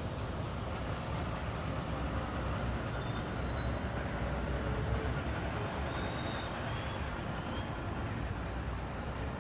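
Diesel engine of a rear-loader compactor garbage truck running with a steady low rumble as the truck pulls up and stands.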